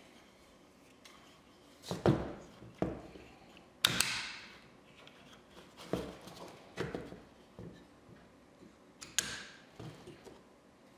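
An antique wooden plow plane being handled and set down on a workbench: a scattering of separate wooden knocks, clicks and short scrapes, the loudest and sharpest about four seconds in.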